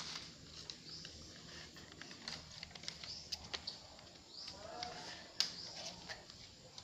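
Birds chirping faintly in short, repeated high chirps, with scattered light clicks and a couple of lower calls about five seconds in.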